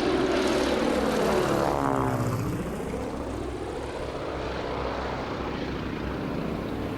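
Piston propeller aircraft engines droning, the pitch shifting about two seconds in before settling to a slightly quieter, steadier drone.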